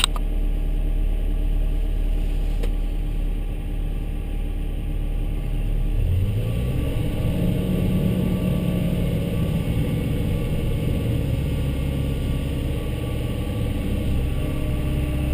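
Volvo excavator's diesel engine running steadily, then revving up about six seconds in and holding at the higher speed.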